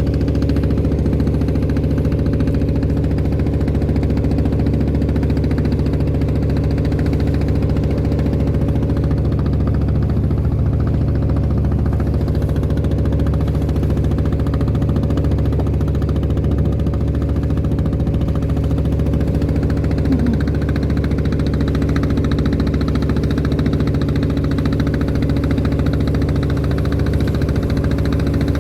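Klotok boat's inboard engine running steadily while under way, an even, unchanging drone.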